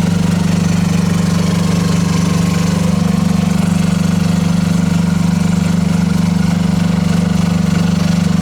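Water-cooled Kubota diesel engine of a Rippa R10 mini excavator running steadily at a constant speed, with an even rapid pulse.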